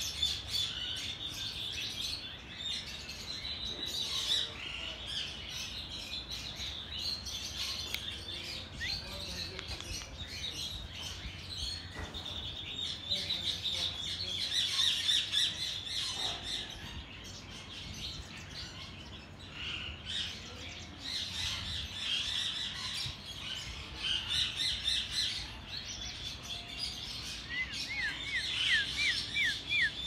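Many aviary birds chirping and twittering without a break, with occasional harsher calls. Near the end one bird gives a quick run of short down-slurred notes.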